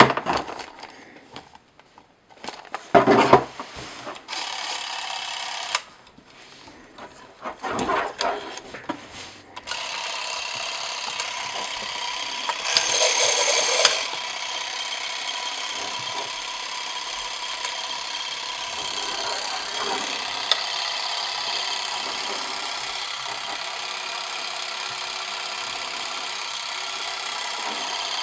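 Clicks and knocks as a Super 8 film cartridge is pushed into a Canon Super 8 movie camera and the cartridge door is shut, with one short burst of motor whir between them. From about ten seconds in, the camera's motor runs film through steadily, a level mechanical whir with a brief louder surge about thirteen seconds in.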